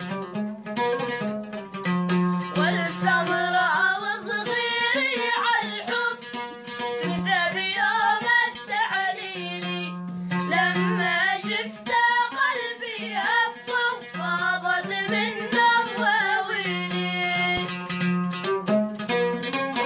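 Oud being plucked in a steady rhythm, accompanying two boys singing a traditional Arabic folk song together; the voices come in a couple of seconds in.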